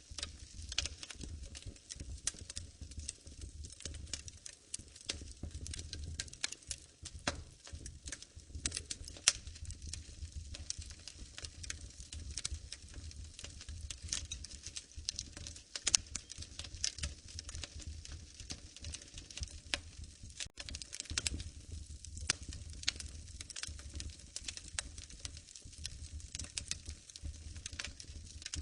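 Wood fire in a fireplace crackling, with dense, irregular pops and snaps over a low, steady rumble.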